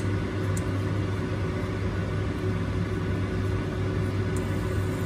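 Electric glass-top cooktop running on low heat under a pan: a steady low electrical hum with a fan-like whir. Two faint light ticks come from tongs touching the pan, about half a second in and near the end.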